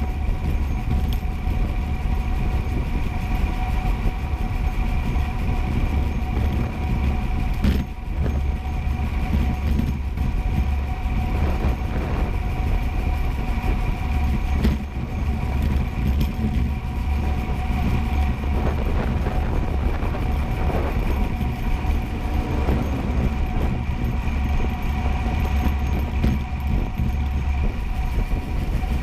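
Steady road rumble of wheels rolling fast down an asphalt road, heaviest in the low end, with a few steady humming tones over it.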